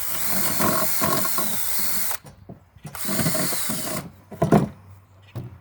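DeWalt DC970 compact 18-volt cordless drill, on a 1.4 Ah battery, running under load while drilling a hole in a board. It stops about two seconds in, runs again for about a second, and a few knocks follow.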